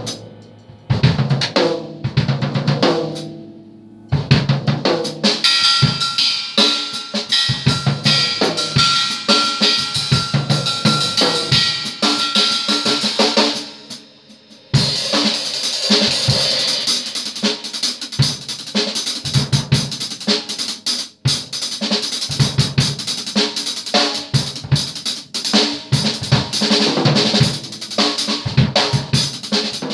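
Drum kit played hard: fast fills across the toms, snare and bass drum under a constant wash of cymbals. A steady high ringing note holds for about seven seconds early on, and the playing drops away briefly near the middle before starting up again.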